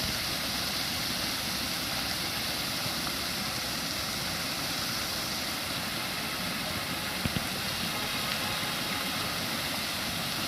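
Spouting water fountain running: jets of water spraying up and splashing down into the basin in a steady, even splash.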